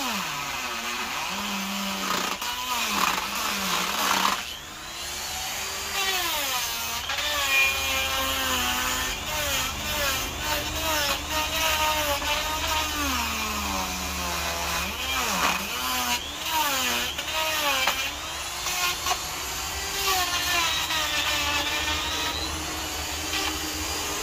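Die grinder with a wood-carving burr cutting into a log. Its whine rises and falls in pitch throughout as it is worked into the wood.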